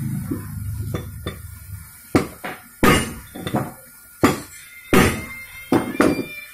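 Heavy hammer blows on a steel pin or drift set on a motorcycle crankshaft half, driving the part home. There are about six sharp metal-on-metal strikes starting about two seconds in, each with a short ringing tone.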